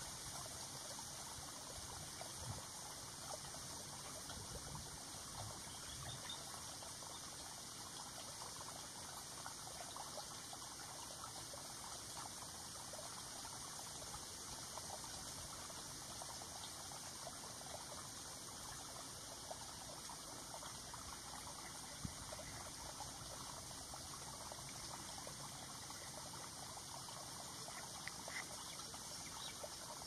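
Faint, steady hiss of outdoor pond ambience, with a few soft ticks scattered through it.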